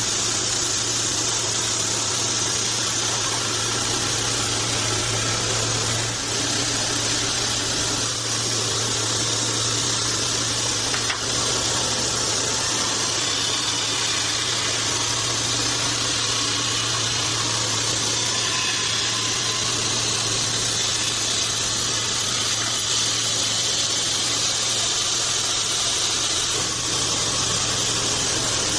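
Band sawmill running steadily, a constant low motor hum under an even high hiss that does not change.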